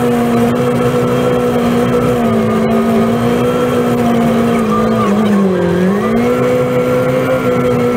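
Front-mounted snow blower and the engine driving it, heard from inside the cab, running steadily with a clear tone while clearing snow. About five seconds in the pitch sags and then recovers, as the machine takes a heavier load of snow.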